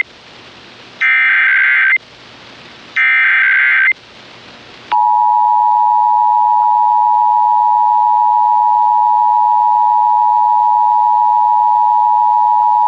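Emergency Alert System tones for a required monthly test: the last two of the three digital header (SAME) data blasts, each about a second long with a second's gap, then, about five seconds in, the steady two-tone EAS attention signal, held for about eight seconds.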